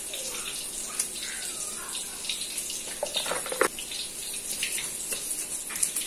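Tofu deep-frying in hot oil: a steady sizzle with fine crackling, with a few sharper knocks about halfway through.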